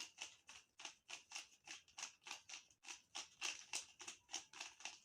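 Rubik's Cube layers being turned in quick succession: a run of faint plastic clicks, about four a second.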